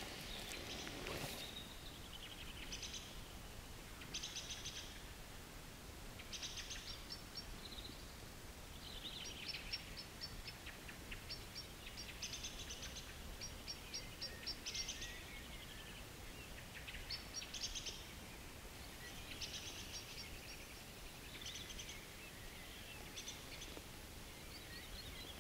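Small songbirds singing: short bright phrases of quick notes and trills, one every second or two, some overlapping, over a faint steady low background noise.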